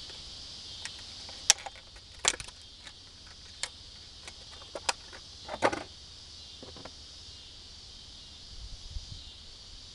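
Irregular metallic clicks and clanks, about nine spread over the first seven seconds, from handling an 8-ton hydraulic wire crimper and a copper cable lug as they are set up for a crimp.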